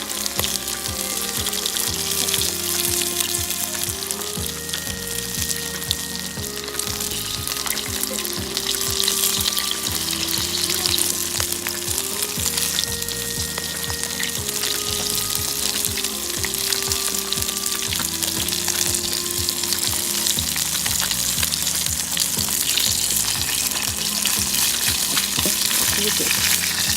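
Akaushi beef hamburger steaks sizzling and crackling steadily in a pan, frying in the fat they are giving off.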